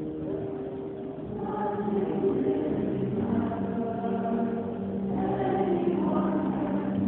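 A choir singing in several parts, holding long notes that change every second or so; the singing grows louder about a second and a half in.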